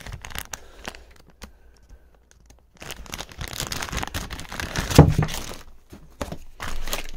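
Rummaging through tools and parts on a workbench: a plastic bag rustling and crinkling, with scattered clicks of metal items being moved. The loudest knock comes about five seconds in.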